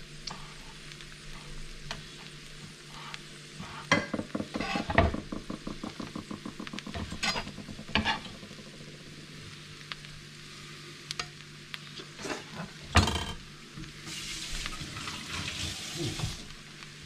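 Pinto beans and onions frying in lard, a low, steady sizzle. Several sharp clicks and knocks cut through it, with a run of quick clicks in the middle. Near the end the sizzle turns brighter and hissier as cut chipotle pieces land in the hot fat.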